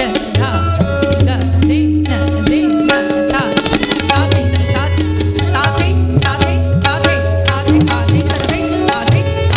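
Live Kathak accompaniment: tabla playing quick, dense strokes over a repeating harmonium melody line with held notes.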